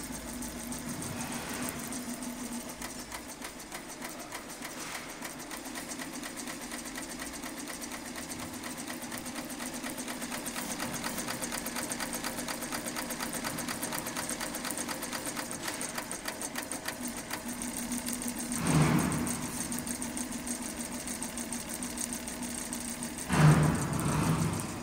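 ROYAL YHC1501 single-head, 15-needle embroidery machine running steadily, its needles stitching in a fast, even rhythm while it embroiders a shoe. Two short, louder thumps about 19 and 23 seconds in.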